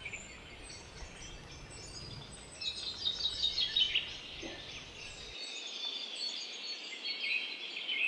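Small garden songbirds chirping and twittering, with a quick run of calls about three seconds in.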